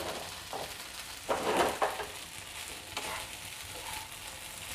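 Soaked sabudana (sago pearls) and crushed peanuts being stirred and sautéed in hot oil in a kadhai: a light steady sizzle under the scrape of the stirring, with the loudest scrapes about one and a half seconds in.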